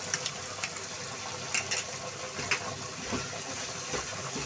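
Vegetables sizzling softly in a non-stick kadhai, with light, scattered clicks and scrapes as a spoon scrapes ketchup from a small bowl and a spatula stirs in the pan.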